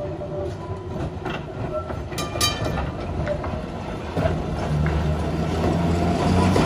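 London Transport 1930 EMB/English Electric double-deck tram running past at close range, its motors humming and its wheels clicking on the rails. It grows louder from about four seconds in as it draws alongside, and there is a brief high metallic sound about two seconds in.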